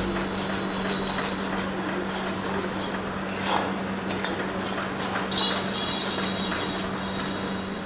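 Long metal spatula stirring and scraping fish and spice masala around a hot black wok, with the masala sizzling as it fries. Two sharper knocks of the spatula against the pan come about three and a half and five and a half seconds in.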